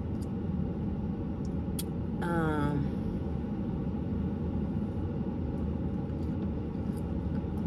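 Steady low hum of a car idling, heard from inside the cabin, with a few faint clicks.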